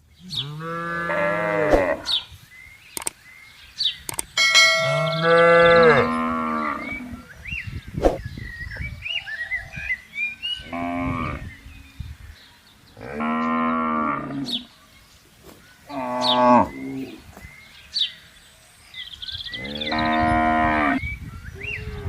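Cattle mooing: about six long, drawn-out moos, one every few seconds, with short pauses between them.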